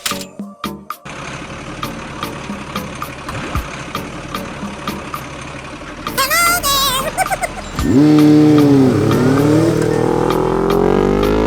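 Vehicle engine sound running with a steady ticking, then a loud engine revving from about eight seconds in, its pitch rising steadily. A brief warbling high whistle comes about six seconds in.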